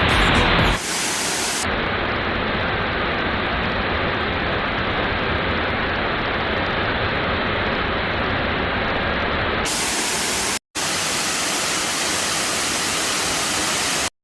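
Waterfall water rushing in a steady loud roar, broken by a split-second drop-out about ten and a half seconds in and cutting off just before the end.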